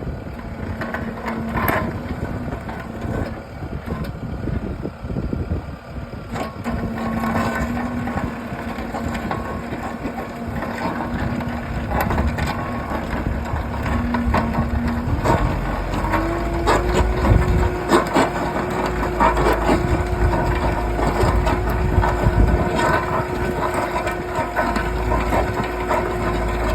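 A weighted earth auger drilling into rocky ground, its engine running under load while rock and soil crunch and crack against the bit throughout. The engine's steady drone steps up in pitch about halfway through and holds there.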